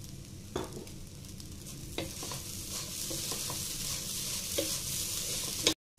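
Wooden spatula stirring poha (flattened rice) in a pot on the stove, over a light sizzle that grows louder from about two seconds in, with a few knocks of the spatula against the pot.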